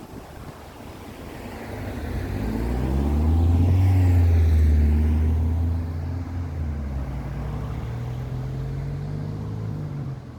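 A motor vehicle passes close by on the road. Its engine and tyre noise swells to a peak about four to five seconds in, and the pitch falls as it goes by. A quieter engine hum then carries on, rising slowly in pitch near the end.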